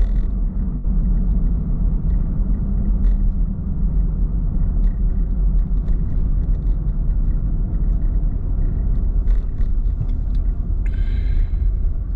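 Steady low rumble of a car driving: road and engine noise. There are a few faint ticks, and a brief high-pitched tone about eleven seconds in.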